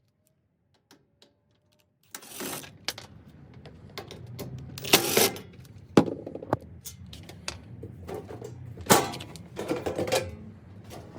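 Mechanical clicking and knocking that starts about two seconds in, with several sharper knocks, over a low hum that comes and goes.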